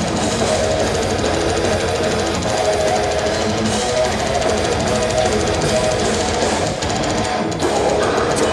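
A death metal band playing live at full volume, with distorted guitars and drums forming a dense, unbroken wall of sound, heard from inside the audience.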